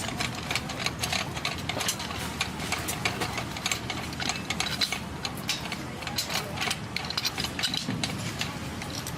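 Machinery running: a steady low hum with a dense, irregular stream of clicks and ticks on top, like a ratchet or gears.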